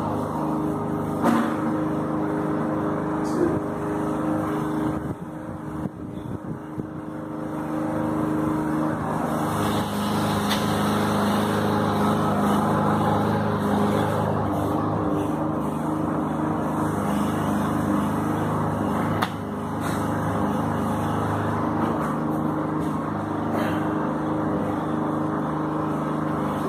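A steady low drone like a running engine, easing off for a few seconds early on and then coming back. A few sharp clicks stand out in it.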